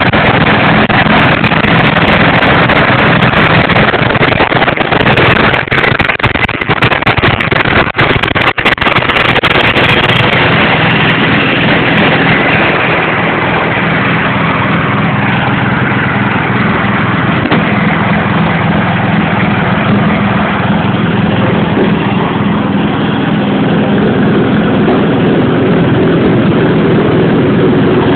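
Briggs & Stratton 5 hp single-cylinder engine of a homemade three-wheeler running steadily, with loud crackles over it for several seconds in the first third.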